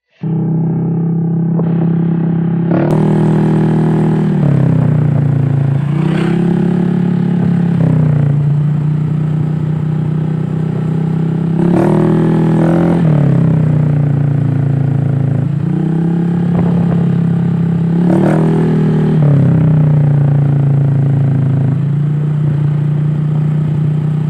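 Honda Click 150i scooter's single-cylinder engine breathing through an SC Project aftermarket exhaust, idling loudly and blipped up and back down about five times. It starts suddenly, right at the beginning.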